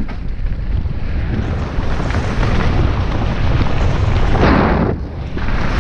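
Wind buffeting a helmet or chest camera's microphone over the rumble and rattle of a mountain bike's tyres rolling fast on a dirt and gravel trail. A louder gritty rush of tyres on loose ground comes near the end.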